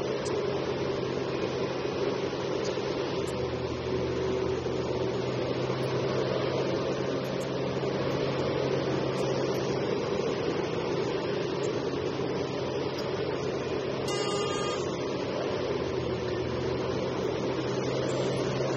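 Liebherr R 984C crawler excavator's diesel engine running steadily under load as it digs and loads, with a deeper low note present from about four seconds in until near the end.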